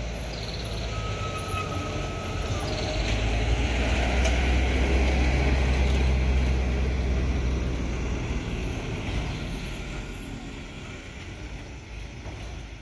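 Diesel light cargo trucks driving past close by: the engine rumble swells to a peak around the middle, then fades as they pull away. A brief high-pitched squeal comes about a second in.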